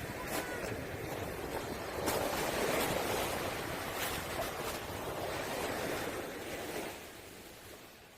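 Sea waves washing onto a pebble beach, the stones clicking and clattering in the surf. The wash swells about two seconds in, then fades away near the end.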